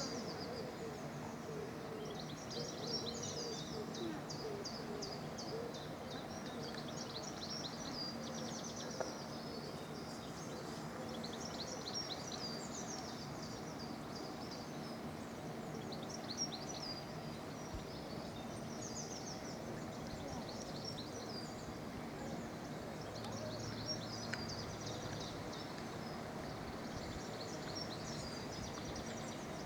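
Small songbirds singing in high, rapid chirping phrases that recur every few seconds over a steady background hiss of outdoor noise.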